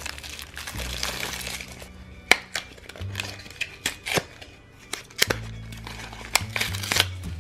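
Crinkling plastic wrapper and sharp clicks from a small plastic Shopkins blind basket being handled and its wrapped packet pulled out, over background music with a steady low bass line.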